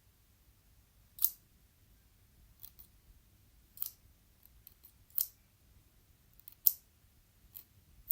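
Salad ingredients being cut: a series of short, sharp, crisp snips at irregular intervals, some loud and some faint.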